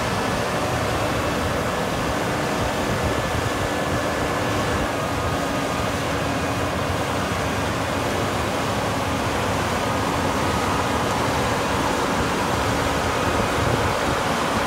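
AGCO Challenger rubber-track tractor's diesel engine running steadily as the tractor drives slowly on its tracks.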